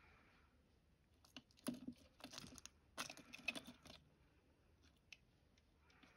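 Faint crackling and scratching clicks for about two and a half seconds as a fishing spider seizes a yellow-and-black insect and the two scuffle against the enclosure.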